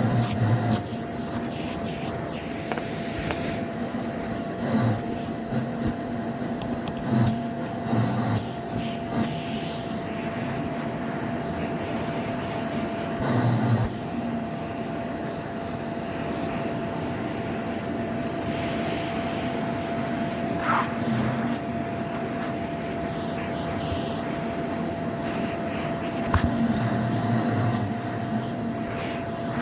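Vacuum cleaner running steadily on shag carpet, a constant motor whine over a rushing hiss, with low thuds now and then as it is pushed back and forth.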